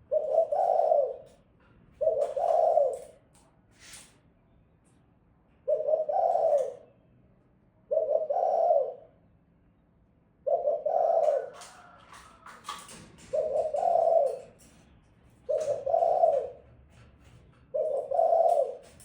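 Female spotted dove cooing: a short, low coo phrase about once every two seconds, eight in all, with faint clicks in between.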